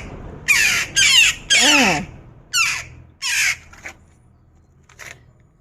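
Several jackdaws calling: a run of about seven short, harsh calls that each slide downward in pitch. The calls come close together at first, then grow sparser and fainter, ending in a quieter stretch near the end.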